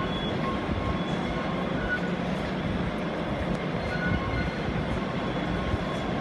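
Underground metro station ambience: a steady low rumble with rushing air noise and a few faint, short high tones.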